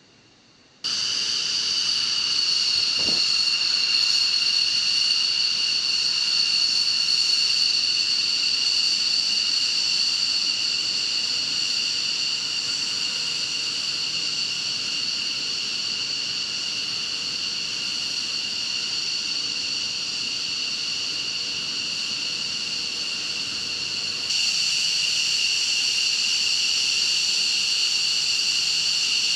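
Jet engine running with a steady high-pitched whine over a hiss; it cuts in suddenly about a second in and steps up in loudness near the end.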